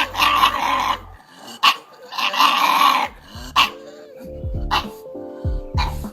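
A dog barking several times over background music.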